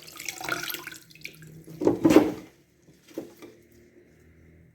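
Water splashing and dripping as herbs are handled in it, with a louder splash about two seconds in.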